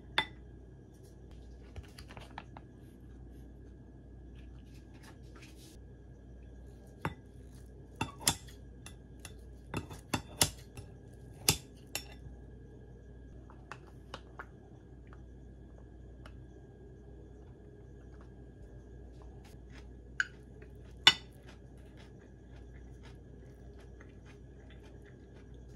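A wooden spoon and metal tongs clinking and tapping against a ceramic bowl as food is plated, in scattered sharp clicks, most of them bunched near the middle and the loudest about four-fifths of the way through, over a steady low background hum.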